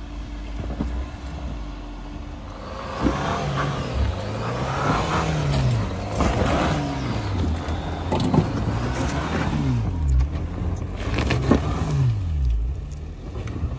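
Jeep engine climbing a loose dirt-and-rock slope. After a steady start it revs up and down repeatedly as the driver works the throttle, with rocks knocking and scraping under the tires. The bald tires are struggling for traction on the loose ground.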